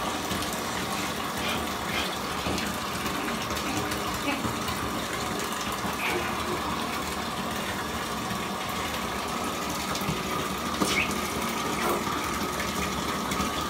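Bathtub tap running, water pouring steadily into a partly filled tub.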